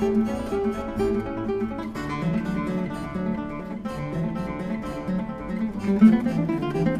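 Background music: acoustic guitar playing a strummed and plucked tune.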